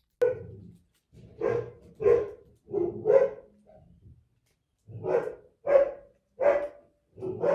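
A dog barking repeatedly, about eight short barks in two runs with a pause of about a second between them.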